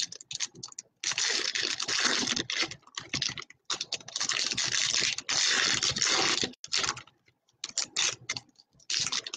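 Trading card packs and cards being handled, a dense rustling with quick clicks in bursts of a second or so, broken by short pauses.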